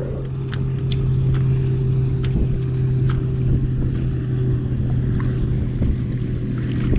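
A boat's motor hums steadily while wind buffets the microphone, with a few faint light ticks.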